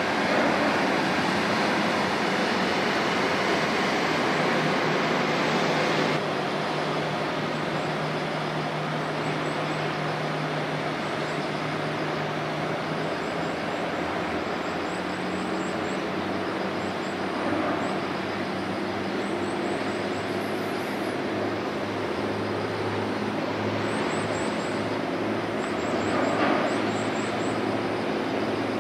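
Large container ship passing close: a steady rush of water from its bow wave over the low, even drone of its engine.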